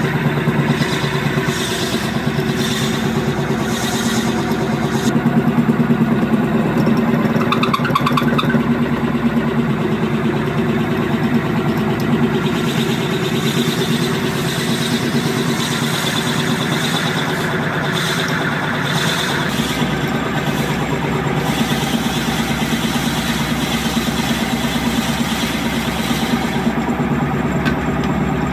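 Wood lathe running with a steady hum while a drill bit in a hand-held boring bar bores into the spinning green-wood workpiece. The higher cutting noise comes and goes as the bit is fed in and eased off.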